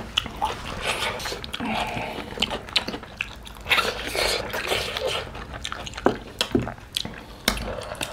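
Close-up mouth sounds of people eating mutton curry with their hands: wet chewing, lip smacks and sucking on meat and bones, heard as many short irregular clicks.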